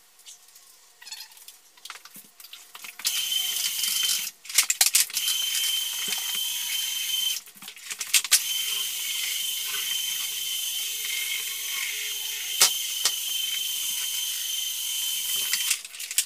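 Electric power tool running with a steady high-pitched whine. It starts about three seconds in, cuts out twice briefly, and stops near the end. A few light knocks and clicks come before it starts.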